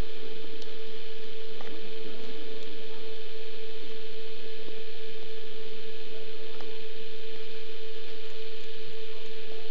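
A steady hum at one unchanging pitch, with a few faint clicks.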